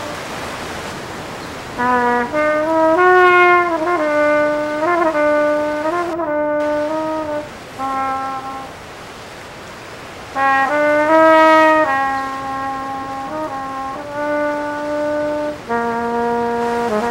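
Flugelhorn played solo: slow phrases of held notes, some bending in pitch, with short pauses between phrases. The wash of surf is heard alone for the first couple of seconds before the horn comes in.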